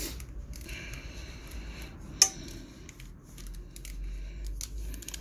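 Faint handling noises from work on an open motorcycle clutch: scattered light clicks and rustling, with one sharp click about two seconds in, over a steady low hum.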